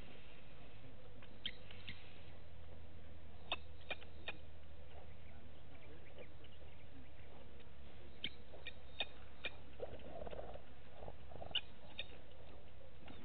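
Outdoor bush ambience: a steady low hum with scattered sharp clicks and snaps, several in quick groups of three or four, and a brief rustle about ten seconds in.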